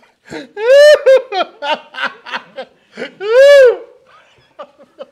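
A person laughing loudly: two long high-pitched whoops with a run of short ha-ha bursts between them.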